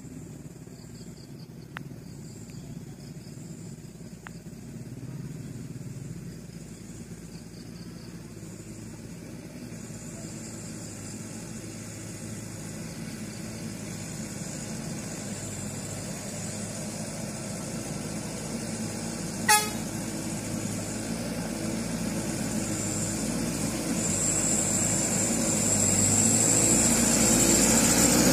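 The diesel engine of a log-laden Mitsubishi Canter truck pulling up a hill, growing steadily louder as it approaches. A short horn toot about two-thirds of the way in.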